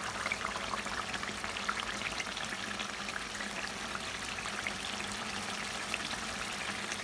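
Thick masala sizzling and bubbling in hot oil in a kadhai, a dense steady crackle of small pops. The oil has separated from the masala, the sign that it is fully fried.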